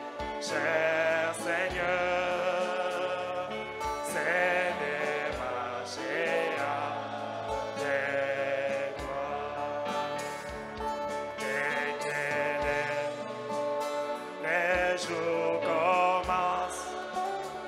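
Gospel worship song: singing held on long notes with heavy vibrato over continuous instrumental accompaniment.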